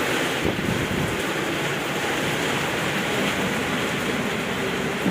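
Heavy rain falling steadily, a dense even hiss of a downpour.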